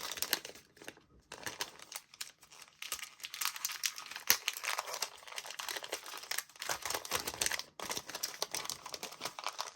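Gift wrapping being crinkled and torn open by hand, a busy run of rapid crackles with a brief pause near the end.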